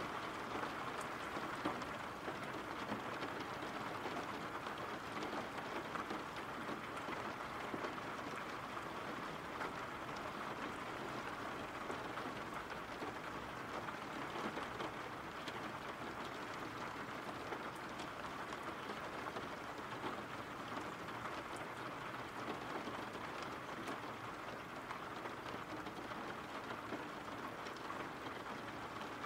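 Steady rain falling: an even, unbroken hiss with a few faint ticks of individual drops.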